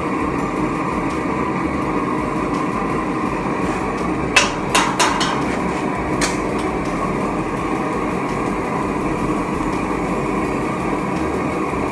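Homemade metal-melting furnace running with a steady rushing noise. A handful of sharp metallic knocks come about four to six seconds in.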